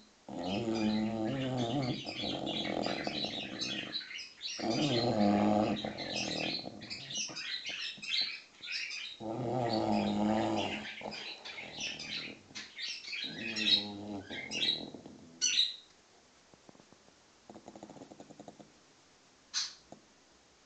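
Six-month-old English bulldog snoring, a long drawn-out snore every few seconds, the last one faint. Birds chirp busily over it, thinning out after the first three-quarters with one more chirp near the end.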